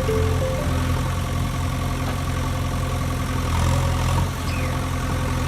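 Vehicle engine idling: a steady, even low rumble that swells slightly a little past the middle.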